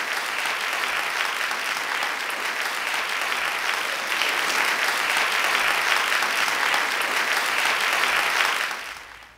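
Applause, a steady dense clapping that fades out near the end.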